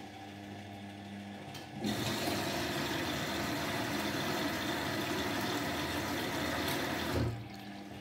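Indesit front-loading washing machine running with its drum turning: a steady motor hum, then about two seconds in a loud rush of water pouring into the drum starts suddenly, runs for about five seconds and cuts off with a low thud, leaving the hum again.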